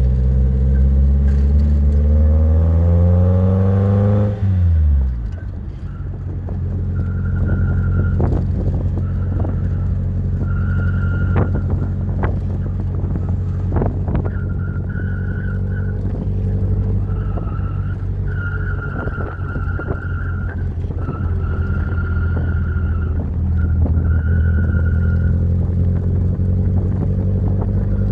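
Triumph Spitfire 1500's four-cylinder engine revving up for about four seconds, then dropping back to a steady low run. Over it, a high squeal at one pitch comes and goes in short stretches, with a few sharp knocks. This is the noise the car makes when turning.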